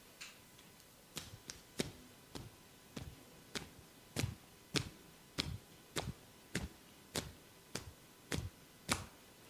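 Percussive massage strokes: hands striking the body in a steady rhythm, about one and a half thuds a second, starting about a second in.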